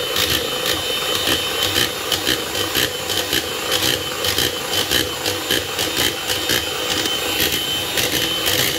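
Electric hand mixer running with its twin beaters whisking raw eggs to a froth in a plastic bowl. It makes a steady motor whir with a held high tone, over which come frequent irregular clicks.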